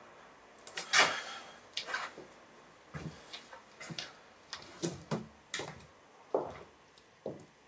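A door and footsteps: a string of short, irregular knocks and clicks, the loudest with a brief scraping hiss about a second in.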